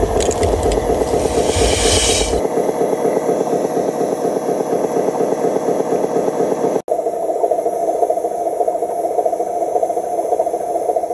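RC dump truck's drive motor and gearbox running with a steady, fast rattling whir. In the first two seconds a burst of hiss and low rumble comes in as soil slides out of the tipped bed. The sound breaks off for an instant near the middle, and afterwards the whir goes on, a little higher and steadier, as the truck drives.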